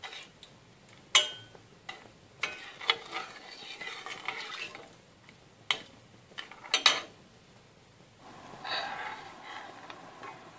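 A spoon stirring in a metal saucepan of candied orange peel in sugar syrup: a series of sharp clinks and knocks against the pan, the loudest about a second in and a quick double clink near seven seconds, with scraping in between.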